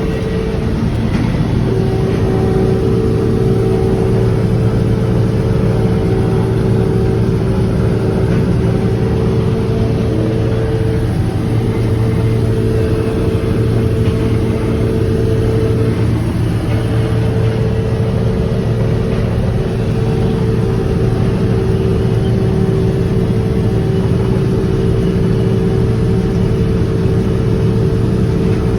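Large farm machine's engine running steadily under a constant load, with a steady whine over it that dips briefly twice.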